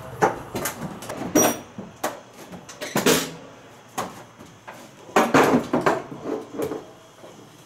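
Irregular knocks, bumps and scrapes of a person moving about and handling equipment inside the metal rear fuselage of a Lancaster bomber. The busiest clatter comes about three seconds in and again around five to six seconds in.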